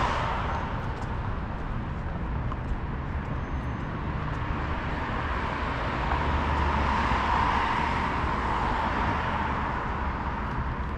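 Road traffic on a multi-lane city street: passing cars' tyre and engine noise over a steady low rumble, one car swelling past from about six to nine seconds in.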